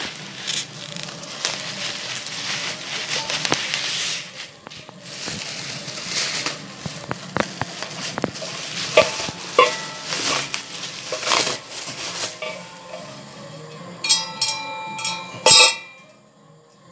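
Bubble wrap and packaging crinkling and rustling as it is pulled off a Royal Enfield Classic motorcycle silencer, with scattered crackles. Near the end come a few knocks with a short metallic ring as the unwrapped steel silencer is handled on the concrete ledge.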